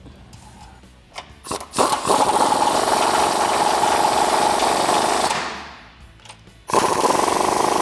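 Pneumatic wrench on an air line running in a steady rapid rattle as it drives a bolt into a Jeep Wrangler JK's top shock mount. It runs for about three seconds, winds down, then starts again near the end.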